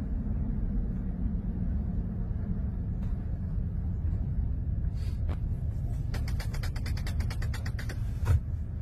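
Steady low road and engine rumble of a car driving, heard from inside the cabin. Near the end a fast clicking rattle, about ten clicks a second, runs for about two seconds, followed by a single thump.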